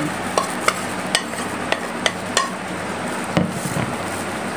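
A metal spoon clinking and scraping against a glass mixing bowl as it works flour into a kebab mince mixture, in a series of light clicks about every half second. Under it runs a steady background hum.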